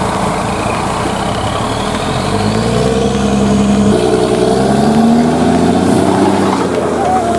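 Heavy diesel engines of a truck-mounted borewell drilling rig and its Doosan air compressor running loud under load, the engine note climbing slowly in pitch.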